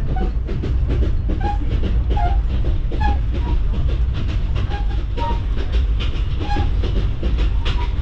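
Running noise inside a moving passenger train carriage: a loud, steady low rumble with continual rattling and clicking. Short high-pitched squeaks come every second or so.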